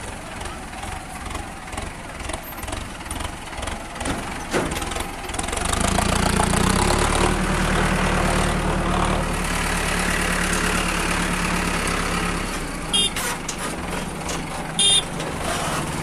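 Farm diesel engine running, rough and uneven at first, then louder and steady from about six seconds in with a constant low hum. Two short, sharp high-pitched sounds come near the end.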